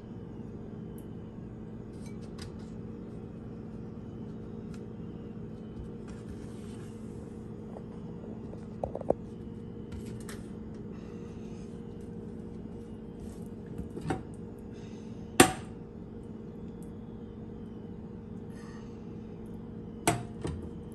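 Scattered light kitchen knocks and clinks as a spoon scoops mashed potato from a bowl and things are set on a wooden cutting board, with one sharp knock about two-thirds of the way through, over a steady low hum.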